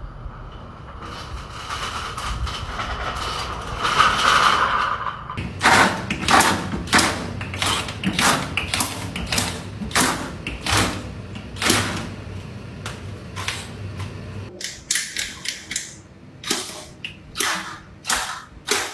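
Handheld electric bottle capper screwing caps onto plastic water bottles one after another, a short sharp burst for each cap, about two a second. A steady machine hum comes first, for about five seconds.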